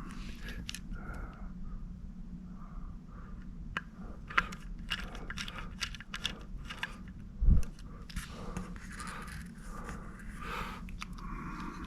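Small clicks and scrapes of metal parts and screws being handled while an external hard drive is put back together, with one louder dull thump about seven and a half seconds in.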